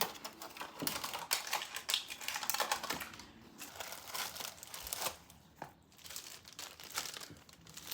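Plastic packaging crinkling and rustling as it is handled, with many small clicks and ticks.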